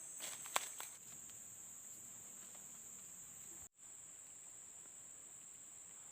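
Insects droning steadily in a high, even pitch, with a few faint clicks in the first second; the sound cuts out for an instant a little before four seconds in.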